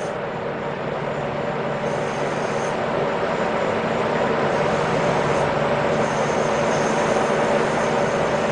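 CNC lathe spindle running with a steady whir while a turning tool takes cuts on the end of the bar stock. A faint high tone comes and goes several times.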